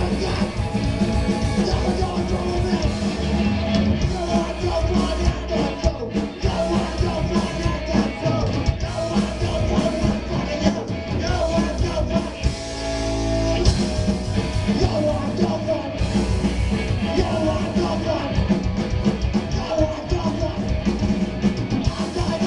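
Live rock band playing loud, with drum kit, guitars and singing; a chord is held briefly a little past the middle.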